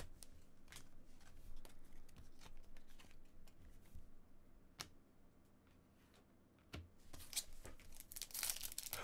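Light clicks of trading cards being handled and set down. Then, about seven seconds in, a foil trading-card pack wrapper crinkles and is torn open, growing louder toward the end.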